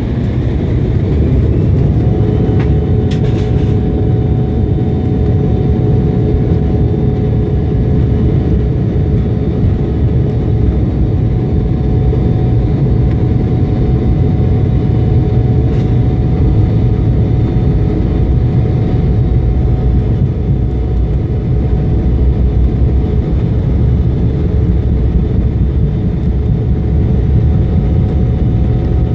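Embraer 175's twin GE CF34-8E turbofan engines at takeoff power, heard inside the cabin during the takeoff roll: a loud, steady rumble with a whine that sets in about two seconds in and holds.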